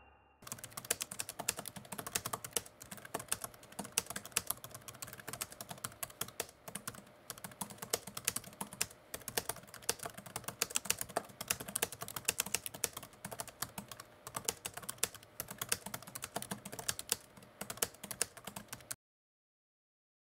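Fast, continuous typing on a computer keyboard: many key clicks a second, starting about half a second in and cutting off suddenly near the end.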